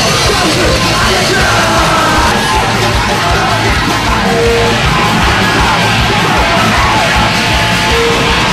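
Loud, dense heavy punk/metal music with yelled vocals.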